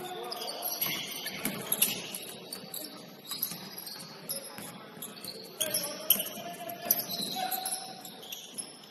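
Basketball sneakers squeaking in short, high chirps on a hardwood gym floor as players run and cut, with a basketball being dribbled.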